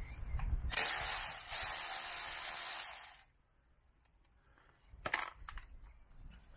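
Socket ratchet clicking rapidly for about two and a half seconds as it turns the centre screw of a motorcycle swing arm pivot plate, stopping abruptly. A couple of light metallic clinks follow about five seconds in.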